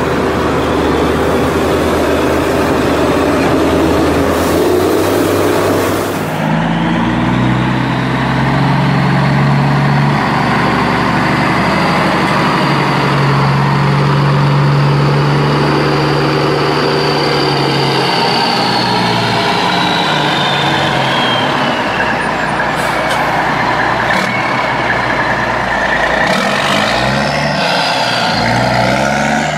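Heavy truck engine running loud and steady. Its note changes about six seconds in, and a high whine climbs and then falls away past the middle.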